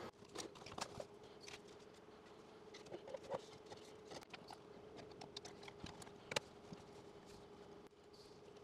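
Faint scattered clicks and taps of objects being handled and set down on a workbench, with one sharper tap a little past the middle, over a faint steady hum.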